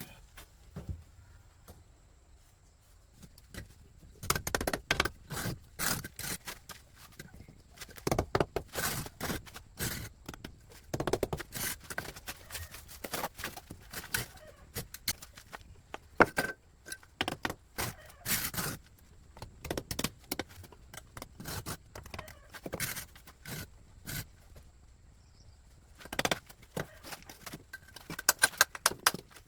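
Irregular clattering: many sharp knocks and clinks in quick clusters, with short pauses between them.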